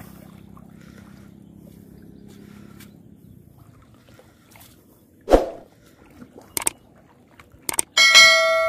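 Subscribe-button animation sound effects: a sharp pop about halfway through, two short mouse clicks, then a loud bell-like notification ding near the end that rings on and fades. Before them, a faint low rumble.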